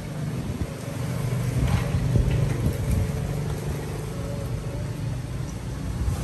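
A motor vehicle's engine running, a steady low hum that swells about two seconds in and then slowly eases off.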